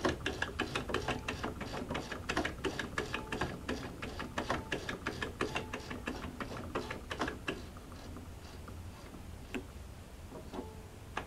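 The exposed inner mechanism of a Jaguar 592 portable sewing machine, needle bar and linkages, clicking and rattling as it is worked through its stroke, so that freshly applied oil reaches the moving joints. The clicks come thick and fast for about seven seconds, then thin out to a few scattered ones.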